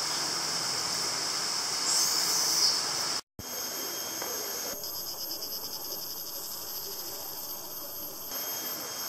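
Steady, high-pitched drone of forest insects. It cuts out for a split second about a third of the way in, then carries on with a fast, even pulsing for a few seconds.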